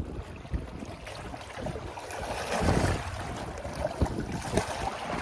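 Wind buffeting the microphone over the wash of water, with low thumps and a louder gust about two and a half seconds in.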